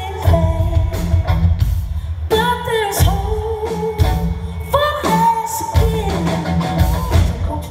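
Live rock band playing: a woman sings long held notes over electric guitar and a steady drum beat, heard from within the crowd.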